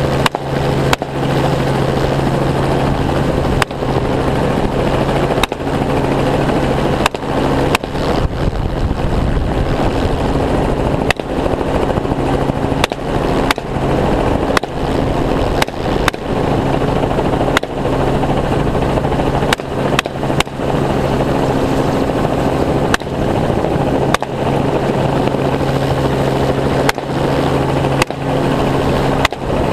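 Helicopter running steadily in flight, its rotor and engine drone constant, with repeated rifle shots cracking out at irregular intervals: a couple of dozen shots, sometimes two in quick succession.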